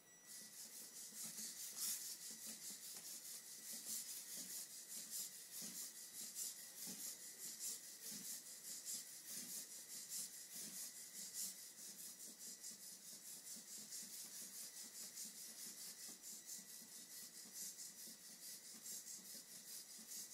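AX-12 servos in the legs of a Phoenix hexapod robot moving in quick, scratchy pulses, several a second, with a faint steady high whine underneath.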